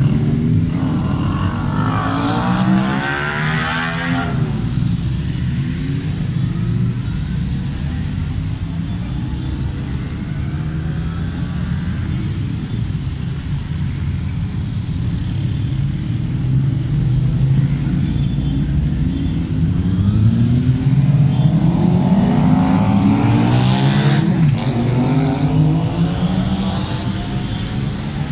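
A procession of motorcycles, trikes and a sidecar outfit riding past one after another, engines running steadily, their pitch rising and falling with each pass. Louder passes with revving come a couple of seconds in and again near the end.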